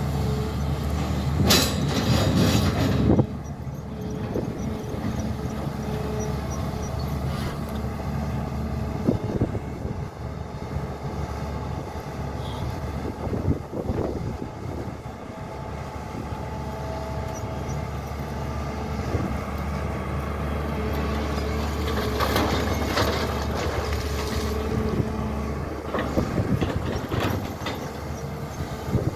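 SANY crawler excavator at work: its diesel engine runs steadily under load with a hydraulic whine, while the bucket scrapes and knocks through soil and rock, louder near the start and again about three quarters through.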